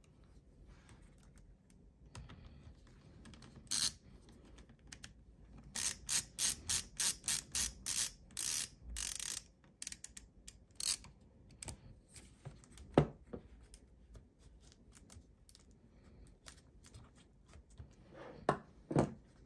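LTT ratcheting screwdriver clicking as its ratchet is worked on a small laptop screw, a quick run of about a dozen sharp clicks in the middle. A single sharp knock follows a few seconds later, and a couple of light handling clicks near the end.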